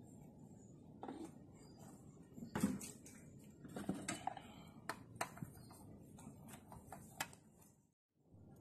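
Scattered light clicks and plastic knocks from handling the oil bottle, funnel and filler area in a car's engine bay, the loudest about two and a half seconds in. The sound cuts out shortly before the end.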